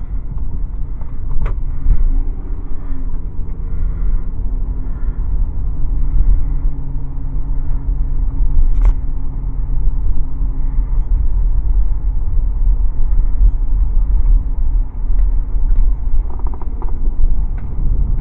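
Car cabin while driving: heavy low road and engine rumble, with a steady engine hum for several seconds and a single sharp click about nine seconds in.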